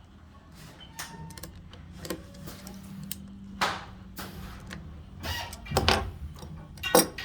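Small hand tools and the metal hardware of a fire-poi node being handled as it is screwed together: irregular clicks and scrapes, with louder knocks about three and a half seconds in, around six seconds, and just before the end.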